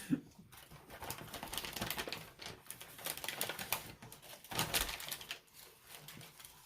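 Fast eating of fried chicken sandwiches and fries: irregular crunching and crackling of chewing, mixed with the rustle of paper food wrappers, louder about four and a half seconds in.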